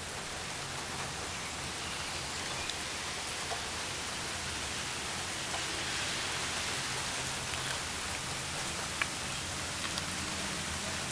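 Steady rain falling, a continuous hiss with sharper drop hits every second or so.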